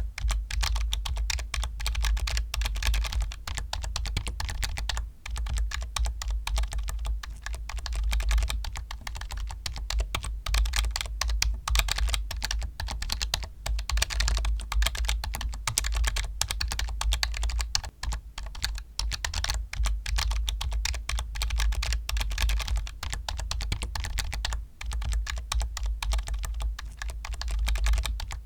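Fast, continuous typing on a computer keyboard, a dense stream of keystrokes with a few brief pauses.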